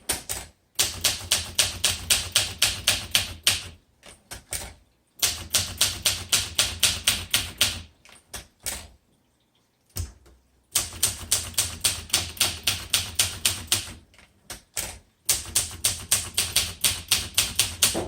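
1966 Olympia SM9 manual typewriter being typed on: quick runs of sharp keystrokes, several a second, broken by short pauses and one longer pause about halfway through.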